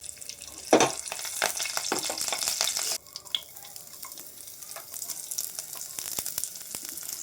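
Fresh curry leaves dropped into hot oil with cumin seeds, spluttering in a loud burst about a second in and then sizzling with many sharp pops. About three seconds in the sizzle drops suddenly to a quieter, steady crackle.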